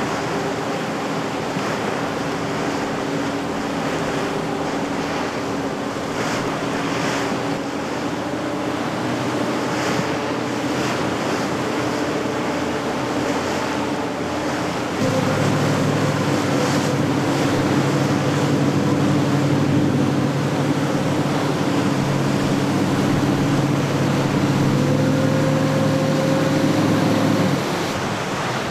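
Choppy sea and spray rushing, with wind buffeting the microphone, over the steady drone of a boat engine. The engine grows louder about halfway through and cuts off just before the end.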